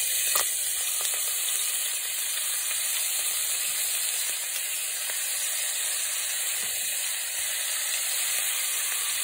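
Lamb pieces sizzling steadily as they brown in hot olive oil with garlic in a stainless steel pot, with one light knock about half a second in.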